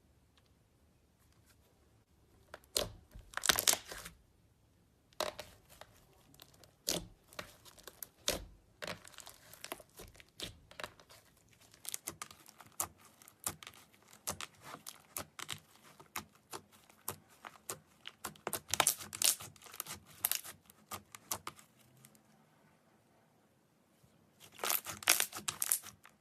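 Slime being worked by hand, giving a string of sticky clicks, pops and crackles, in louder bursts about three seconds in, near the middle and near the end.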